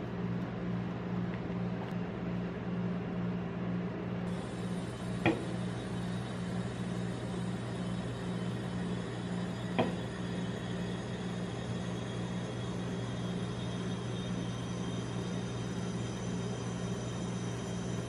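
Steady low mechanical hum of a rolled-ice-cream machine's refrigeration compressor running under its steel cold plate. Two short, sharp clicks sound over it, about five and ten seconds in.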